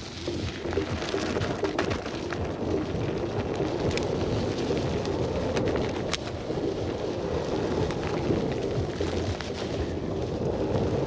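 Wind rumbling on the microphone over the noise of an electric unicycle rolling along a dirt forest singletrack, with three sharp clicks.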